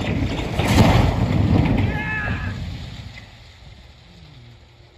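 Tall corrugated-steel grain silo toppling and crashing down onto a farm building: a loud crash of crumpling sheet metal that peaks about a second in and dies away over the next two seconds.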